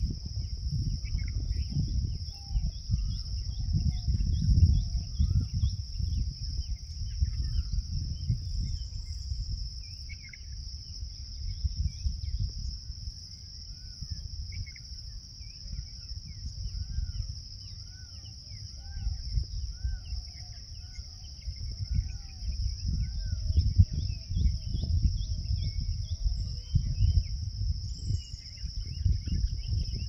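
A steady, high-pitched insect drone, with small birds chirping on and off, including a run of short repeated chirps about once a second midway. An irregular low rumble rises and falls underneath.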